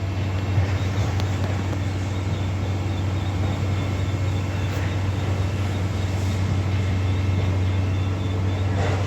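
A crane's engine running with a steady low drone while it lowers a section of the demolished log flume's supports.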